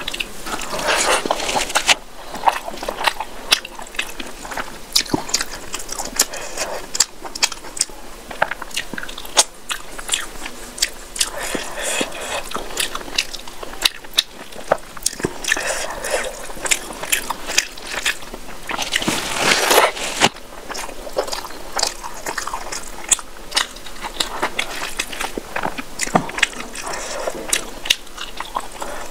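Close-miked eating of rice and curry by hand: wet squishing as fingers mix rice with curry, and mouthfuls chewed with lip smacks and many sharp little clicks and crunches.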